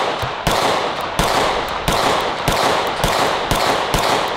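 SAR9 X 9mm semi-auto pistol firing a steady string of about eight shots, roughly two a second, each trailing off in an echo. The pistol is firing wet, during the water stage of a torture test, and keeps cycling shot after shot.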